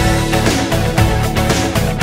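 Background music with a steady driving beat.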